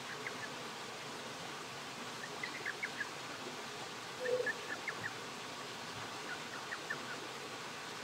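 Steady hiss of a small creek, with faint clusters of short high chirps every couple of seconds and one brief low note about four seconds in.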